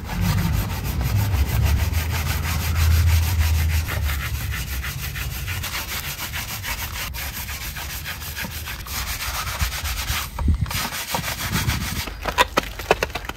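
Bristle wheel brushes scrubbing a soapy, wet alloy wheel in rapid back-and-forth strokes, giving a steady wet scratching and rubbing sound. A low hum sits under the first few seconds, and a few sharp knocks of the brush come near the end.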